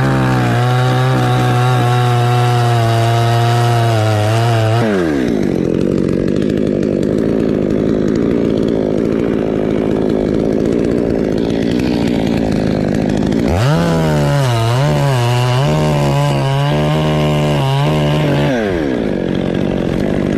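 Chainsaw running at full speed, then dropping in pitch as it bites into a teak trunk and labours through the cut for several seconds. About two-thirds of the way in it speeds up again with a wavering pitch, then drops once more under load near the end.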